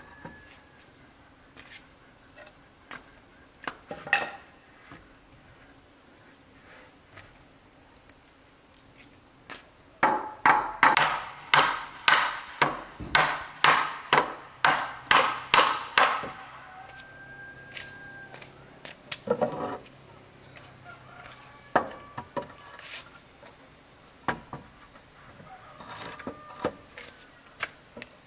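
Wooden bed-frame parts being knocked together during assembly: scattered single wooden knocks, then a fast run of about a dozen loud knocks, roughly two a second, from about ten seconds in to about sixteen seconds, followed by a few more single knocks.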